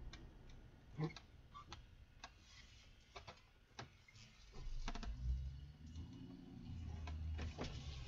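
Irregular light ticks and clicks, joined about five seconds in by a low rumble, inside a storm-chase vehicle.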